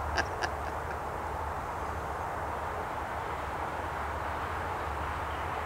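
Steady outdoor background noise: an even hiss with a low rumble underneath, and a few faint clicks in the first half second.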